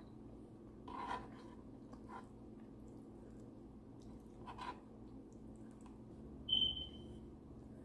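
Fingers picking cooked tilapia flesh off the bones on a wooden board: a few soft clicks and taps over a faint steady hum. About six and a half seconds in comes a short high squeak, the loudest sound.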